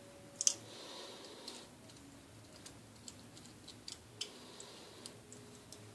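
Eggshell crackling and clicking as it is peeled off a hard-boiled egg, small pieces of shell dropping into a bowl. Two sharp clicks about half a second in are the loudest, followed by scattered lighter ticks.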